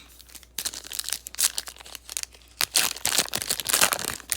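Plastic wrapper of a football trading-card pack crinkling and tearing as it is opened, a dense run of crackles starting about half a second in.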